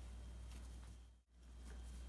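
Faint room tone with a steady low hum, cutting out to silence for a moment about a second in and then returning.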